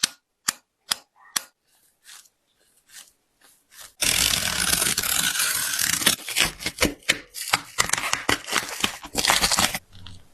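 A Nike Hyperdunk X Low basketball shoe being cut and torn apart: a few sharp snips, then about six seconds of loud, continuous tearing and rasping of the shoe's materials that stops near the end.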